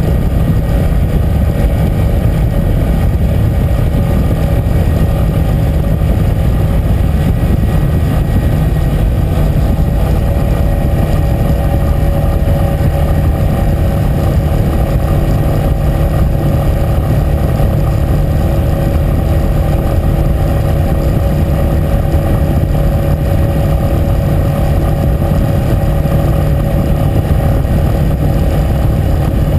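Yamaha Fazer 250's single-cylinder engine running steadily at a constant cruise, with wind rush over the bike-mounted camera.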